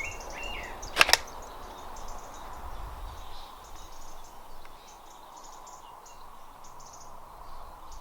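Small birds chirping over faint outdoor background noise, with a sliding call at the start and a sharp double click about a second in.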